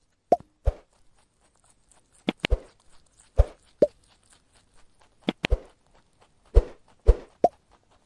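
About a dozen short, hollow knocks or plops at irregular intervals, several of them in quick pairs.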